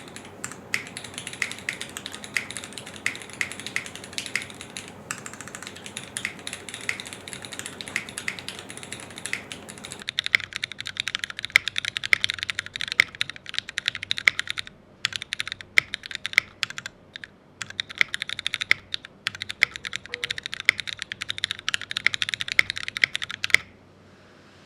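Typing on an ORCA65 custom mechanical keyboard: a fast, dense run of key clicks with brief pauses, stopping shortly before the end. Low background hum under the first half.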